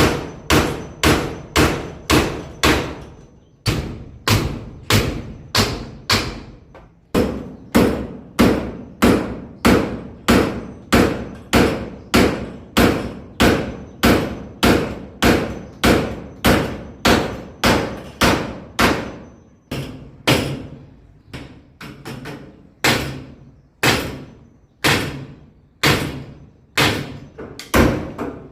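Hammer striking nails, about two blows a second in steady runs with a few short pauses; each blow rings briefly.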